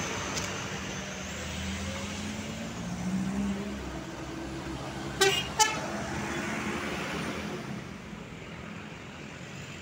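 Road traffic going by: truck and motorbike engines pass, with an engine swelling as a truck approaches two to four seconds in. A vehicle horn gives two short toots about five seconds in, and the traffic noise fades towards the end.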